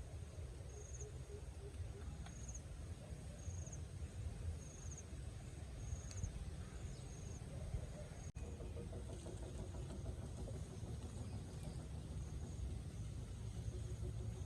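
Outdoor ambience: a steady low rumble, with a short high chirp repeating about once a second through the first half. After a brief dropout about eight seconds in, a faint steady hum takes over.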